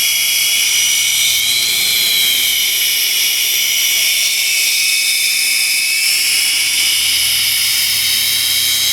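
Angle grinder converted into a belt sander, running with a steady high-pitched whine whose pitch sags and recovers slightly.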